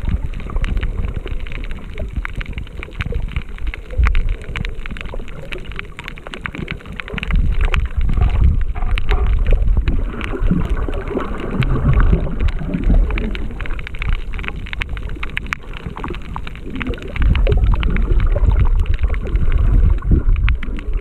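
Muffled underwater sound from a GoPro in its waterproof housing while snorkelling over a reef: low rumbling water movement full of quick clicks and crackles. The rumble swells louder about a third of the way in and again near the end.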